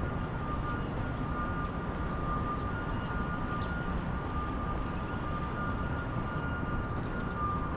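Steady low wind rumble on the microphone mixed with city traffic noise, with a steady high-pitched hum running through it and faint footsteps about twice a second.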